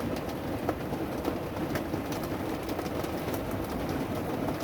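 Steady dense patter of a hailstorm, hail and rain striking surfaces, with many scattered sharper ticks from individual stones.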